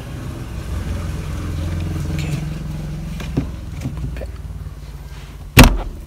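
Gear knob snapped down onto the Kia Forte (Cerato) automatic shift lever with one sharp, loud click near the end, after a few small clicks of handling. Under it runs a steady low hum, the car's engine idling.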